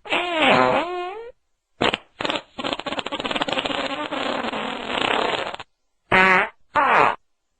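A string of fart sounds. First comes a pitched one that wavers up and down for about a second, then a brief puff. Next is a long, rapidly fluttering one of about three seconds, and near the end two short, pitched toots.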